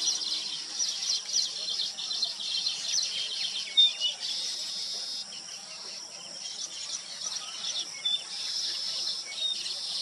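Baya weavers chattering in a dense, high-pitched chorus of quick notes, with a few short, clearer calls standing out about four seconds in and again near the end.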